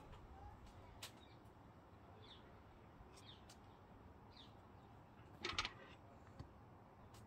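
Near silence with a few faint bird chirps and light clicks from handling. About five and a half seconds in comes a brief clatter, as tomatoes and bell peppers are threaded onto metal skewers on a wooden board.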